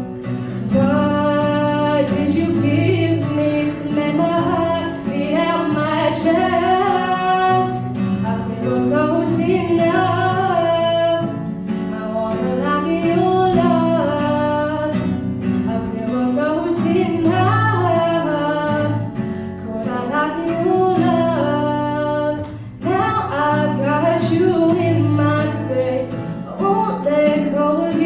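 A woman's voice singing a sustained, melismatic melody without clear words over acoustic guitar.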